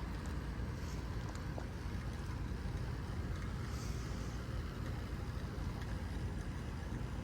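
2025 Carrier Comfort Series 4-ton heat pump outdoor unit running steadily through a defrost cycle, a continuous low hum with a hiss above it.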